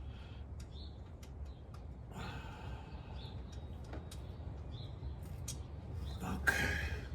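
Scattered light clicks and rustles of parts and tools being handled, with a louder rustling scrape near the end, over a steady low rumble; a few short bird chirps come through in the background.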